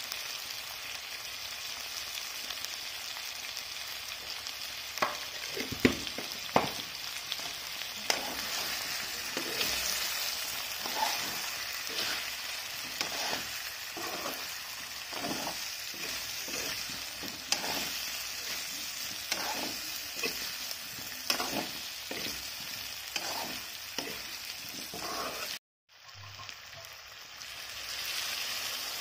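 Potato and eel pieces sizzling in hot oil in a kadai, with a spatula scraping and knocking against the pan as they are stirred with chili powder. Near the end the sound drops out briefly, then water is poured into the hot pan.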